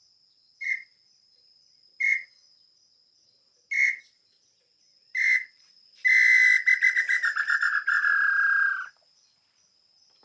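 Bird-call whistle imitating the tataupa tinamou (nambu pé-roxo). It gives four short whistled notes about a second and a half apart, then one long trilled note of about three seconds that sinks slightly in pitch.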